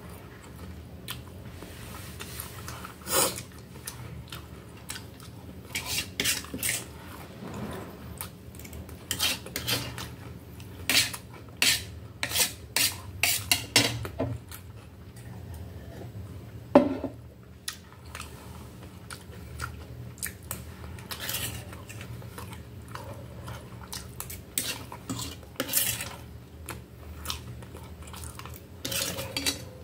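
A metal fork and knife clinking and scraping against a stainless steel tray in many short, irregular clicks, the loudest a little past halfway, with chewing between them.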